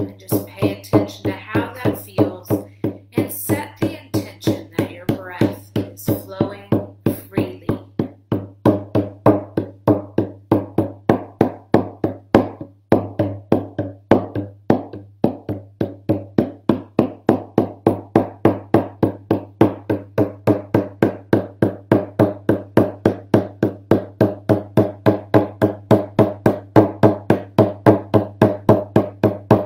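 Hand-held hide frame drum beaten with a beater in a steady, even rhythm of about three beats a second. A voice is heard over the drumming during the first several seconds.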